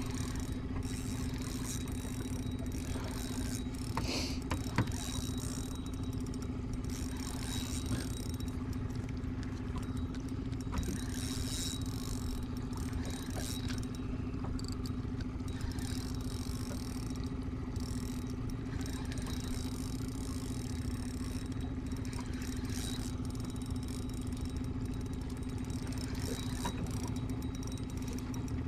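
Small boat outboard motor idling steadily in neutral, with a few light clicks and rattles.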